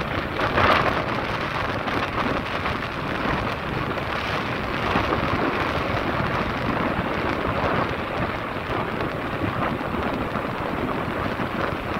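Wind rushing over the microphone of a camera on a moving motorbike: a steady, dense rush of noise with small surges, in which no engine note stands out.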